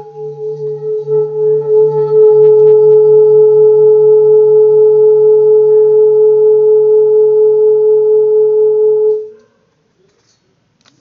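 Handmade seven-metal Himalayan singing bowl ringing after a strike, its tone swelling over the first couple of seconds and then holding with a steady pulsing beat about three times a second. It is cut off about nine seconds in, and the next bowl is struck right at the end.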